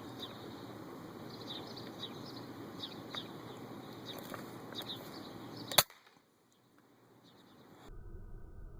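Wind rushing, with small birds chirping now and then, and then a single sharp crack of an FX Impact Mk1 .177 PCP air rifle firing about six seconds in. It is the loudest sound, and the audio cuts to near silence right after it.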